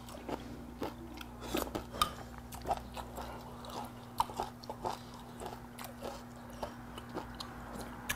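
Close eating sounds of mudskipper stew being spooned up and chewed: irregular small smacks and clicks of chewing, with the spoon tapping in the pot. A faint steady hum runs underneath.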